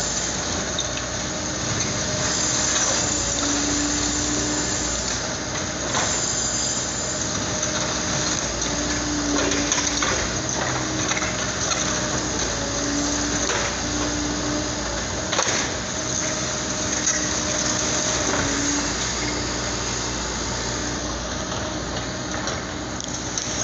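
Liebherr 924 crawler excavator running, its engine and hydraulics giving a steady hum whose pitch steps up and down as the demolition grab works. A few sharp knocks and cracks of concrete and block breaking and falling stand out over it.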